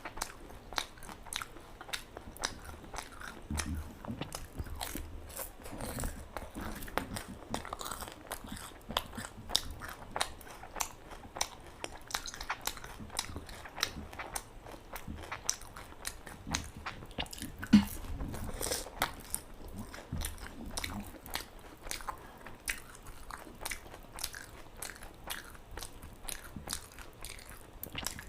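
Pani puri being bitten and chewed: the crisp fried puri shells crack and crunch between the teeth in a run of short crackles, with one louder crunch about eighteen seconds in.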